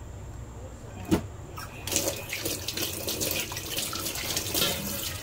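Tap water running into a stainless steel sink and splashing over hands rinsing a cleaned squid, starting about two seconds in. A single sharp click comes about a second in.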